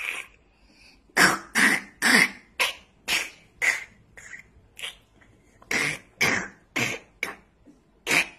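A young child making a rapid string of short cough-like mouth noises, about two a second, with a brief pause midway.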